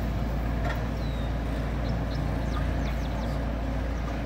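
JCB telehandler's diesel engine idling steadily with a low, even rumble.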